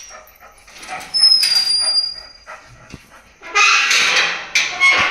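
Pet dog barking and whining in a few loud bursts, with high thin whines between them.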